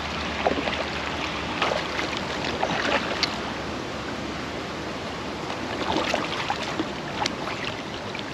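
Water splashing and trickling as a kayak paddle dips and lifts, with two spells of small splashes and drips over a steady wash of moving water.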